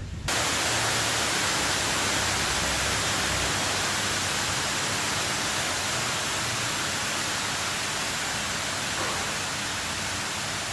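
Water falling and splashing down a small outdoor water feature close to the microphone: a steady, even hiss of water that starts abruptly just after the beginning.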